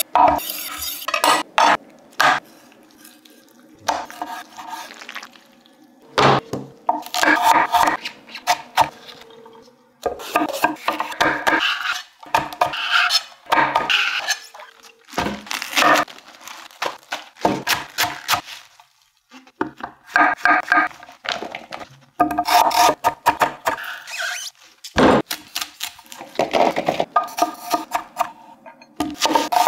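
Chef's knife chopping and slicing vegetables on a wooden end-grain cutting board: runs of quick knife strikes against the wood, with short pauses between. Near the start a rolling knife sharpener rasps along the blade.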